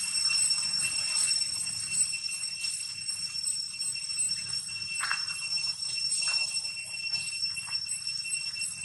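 A steady high-pitched whine with a couple of overtones holds throughout. A few short falling squeaks come about five, six and seven-and-a-half seconds in.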